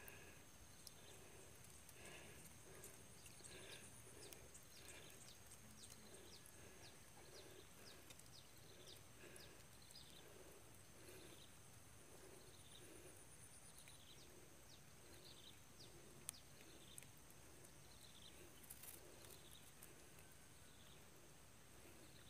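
Faint outdoor ambience of animal calls: low calls repeating about twice a second, with quick high falling chirps over a steady high-pitched whine.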